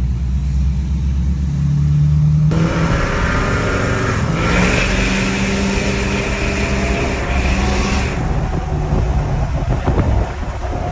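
Tuned 6.7 L Power Stroke diesel V8 with a 5-inch turbo-back exhaust, deleted EGR, accelerating hard while driving. The exhaust suddenly gets louder about two and a half seconds in, with a high whistle over the rush for a few seconds before easing off near the end.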